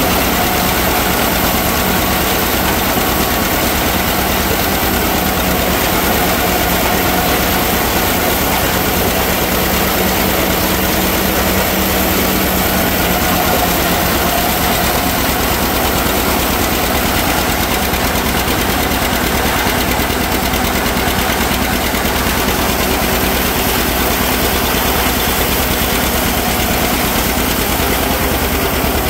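Tractor engine and a PTO-driven one-row forage harvester running together, one steady, loud machinery drone with no letup.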